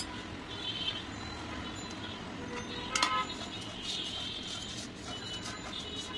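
Plastic spatula stirring dry roasted vermicelli in a nonstick wok, the strands rustling and scraping against the pan, with a sharp tap about three seconds in.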